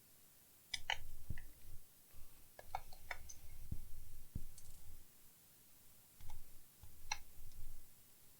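Scattered sharp plastic clicks and light knocks over low handling rumble, in a few short clusters: a laptop's case and parts being handled and taken apart on a workbench.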